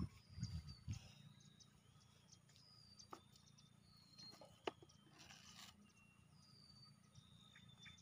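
Near silence with faint bird calls: short whistled notes sliding downward, repeating every second or so, with a few soft clicks and a brief rustle just past the middle.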